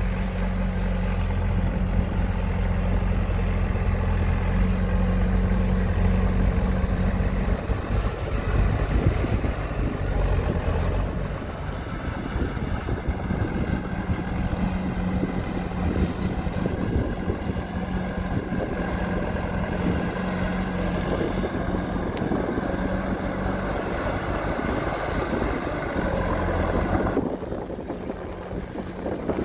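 Heavy-equipment diesel engine running steadily, with some machinery noise over it; the sound changes abruptly near the end.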